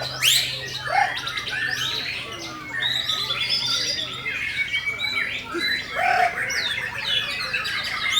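White-rumped shamas (murai batu) singing in competition: a dense, unbroken mix of rapid whistles, trills and harsh chirps from several birds at once, with a faint low hum underneath.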